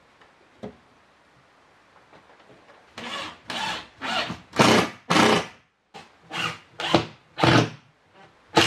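A short knock, then from about three seconds in, quick back-and-forth rasping strokes on wood, about two a second: a hand tool sanding or sawing a wooden part.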